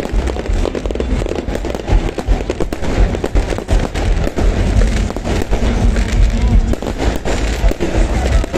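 Fireworks and firecrackers going off in a dense, irregular run of bangs and crackles.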